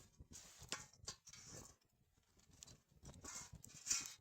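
Firewood logs being handled for a campfire: irregular rustling with scattered knocks and clicks, the sharpest click near the end.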